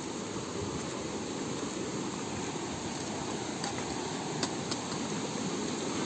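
Steady rushing noise with a few faint clicks.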